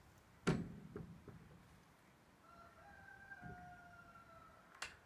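A hard knock about half a second in, followed by a few lighter knocks, as the wooden 4x4 post is set against the steel corner of the shipping container. In the middle, a distant rooster crows once in a drawn-out call.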